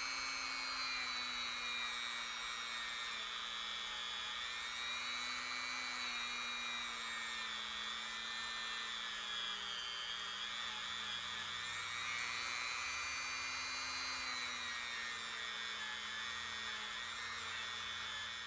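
Dremel rotary tool spinning a buffing pad loaded with rubbing compound, polishing the bolt-lug shelves inside a Savage rifle action. It gives a steady high whine whose pitch sags and recovers a little as the pad is pressed in.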